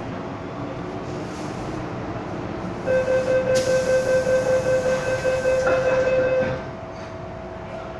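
MTR M-Train door-closing warning: a rapid beeping tone, about three beeps a second, starts about three seconds in and lasts nearly four seconds. A hiss sounds in the middle of it as the car doors slide shut, and the train's steady hum carries on underneath.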